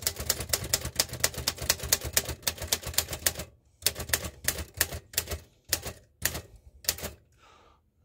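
1969 Remington Ten Forty manual portable typewriter being typed on: a fast run of type bar strikes for about three and a half seconds, then slower, scattered strikes that stop about a second before the end.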